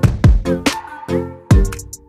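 Background music with an electronic beat: deep, pitch-dropping kick drums and bass notes under a steady high tone.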